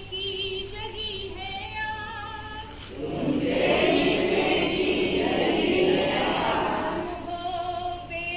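A group of voices singing together: a few held notes at first, then about three seconds in many voices join in much louder for about four seconds before it thins back to held notes near the end.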